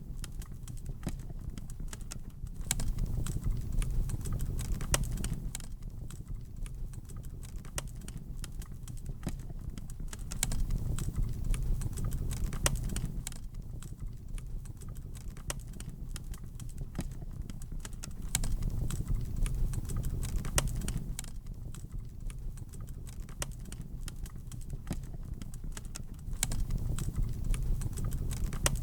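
Wood fire crackling with frequent sharp pops and snaps. Under it, a low rumble of flames swells and fades about every eight seconds.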